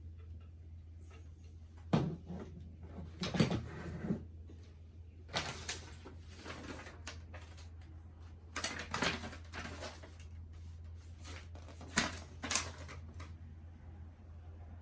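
Handling noises from unboxing a monitor: a series of irregular knocks and rustles from packaging and parts being moved, a few seconds apart, over a steady low hum.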